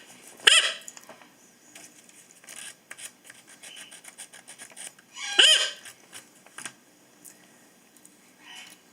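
Patagonian conure giving two short, loud squawks, about half a second in and again about halfway through, with a fainter call near the end. In between are faint scraping and clicking sounds as a fingernail peels flaky scales off the parrot's beak.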